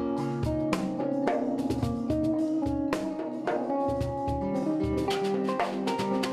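Kanun (Turkish plucked zither) playing a melody of quick plucked notes over a small drum kit, with a steady bass drum beat and stick hits on snare and cymbal.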